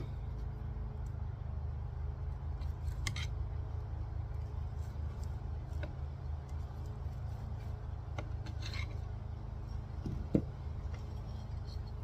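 Small clicks and scrapes of hand work as trimmer string is packed into a brush cutter's spark plug hole, with one sharp knock about ten seconds in, over a steady low hum.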